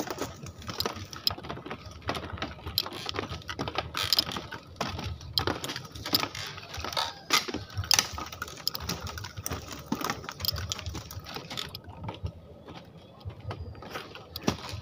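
Footsteps on a bamboo-slat boardwalk: the loose bamboo slats clack underfoot in quick, irregular clicks, easing off for a moment near the end.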